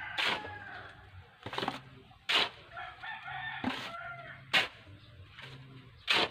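A rooster crowing, one long crow about three seconds in, over several sharp knocks at uneven intervals that are the loudest sounds.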